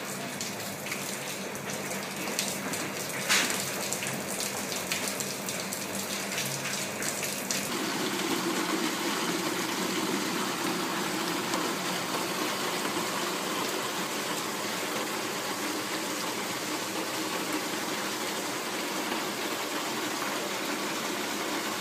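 Rainwater running steadily from a leaking downpipe joint, where the square downpipe has slipped out of the round pipe below it, so the water spills outside the pipe. For the first several seconds there are also scattered knocks; about eight seconds in the running water becomes steadier and a little louder.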